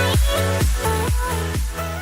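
Electronic dance background music with a steady kick-drum beat, fading out near the end.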